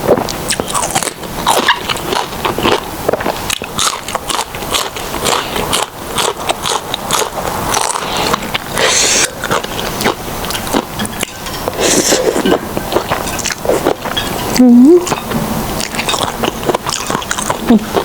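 Close-miked mukbang eating: a person chewing mouthfuls of khanom chin rice noodles, with many wet smacks and clicks. A short rising hum comes near the end.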